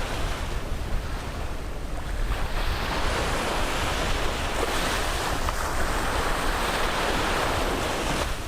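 Sea waves breaking and washing up on a beach: a continuous rush of surf that eases briefly about two seconds in, then swells again.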